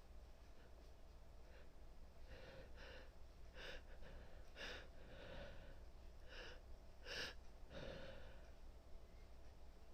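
A woman's faint breathing: a string of seven or eight short gasping breaths starting about two seconds in, the strongest near the end.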